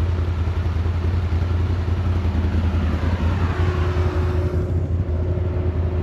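ATV engine running steadily under way, a constant low rumble with road noise above it, and a faint steady whine coming in about halfway through.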